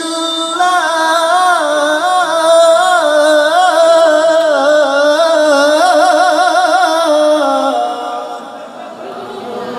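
Male Qur'an reciter chanting a long, melismatic, ornamented phrase in tilawah style, drawing out the opening word "al-hamdu" of a verse. The voice wavers through quick vocal turns and breaks off about eight seconds in, leaving a quieter murmur.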